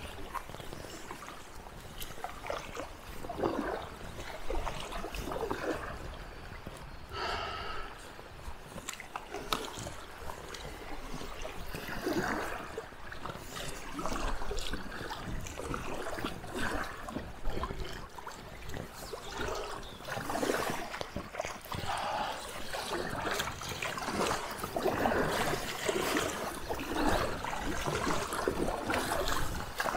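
Fast stream water gurgling and splashing around a packraft riding the current, in irregular swells.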